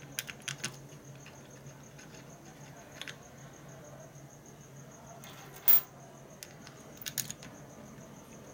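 Small metallic clicks and clinks of a motorcycle brake caliper being taken apart by hand, its pins and small parts set down on a metal lift table, with one louder clank a little past halfway. A steady low hum runs underneath.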